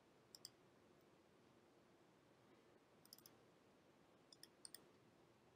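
Faint computer mouse clicks in short press-and-release pairs: one pair near the start, a quick cluster about three seconds in, and two more pairs just after four seconds, over near silence.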